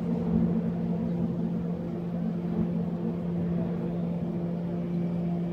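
Towboat's diesel engines running at a steady drone while pushing a tow of loaded coal barges.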